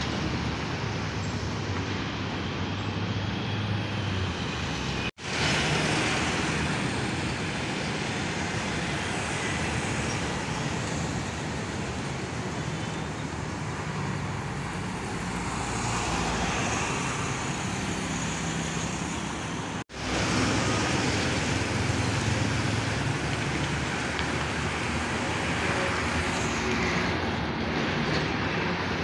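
Road traffic passing close by: cars, motorcycles and heavy trucks, with a steady hum of engines and tyre noise. The sound cuts out for an instant twice.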